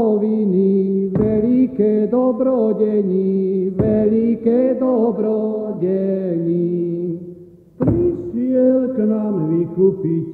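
A group of folk voices singing a Slovak Christmas carol in chant-like phrases, each a few seconds long, with short breaks between them.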